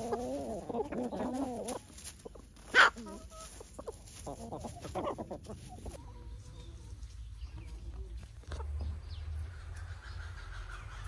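Domestic chickens clucking, with one brief, loud, sharp sound just under three seconds in; the clucking thins out after about six seconds.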